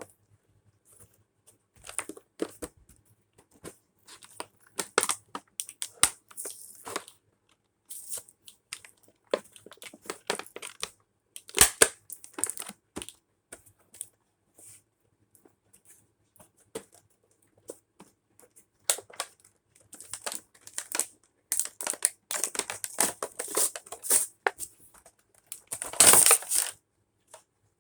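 Action-figure packaging, cardboard and a plastic tray, being torn open and pulled apart by hand: irregular crinkling, crackling and tearing, with a sharp crack about a third of the way through and a loud crunching tear near the end.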